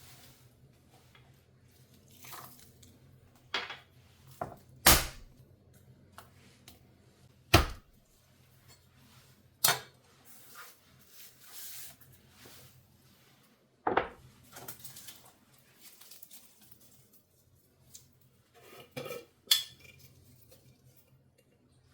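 Dishes and cutlery being handled: several sharp clinks and knocks a few seconds apart, with lighter clattering between them.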